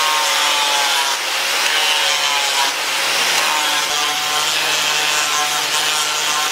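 Electric angle grinder with a sanding pad, sanding a wooden machete handle. The motor hums steadily under the rasp of abrasive on wood, dipping briefly a few times as the pressure changes.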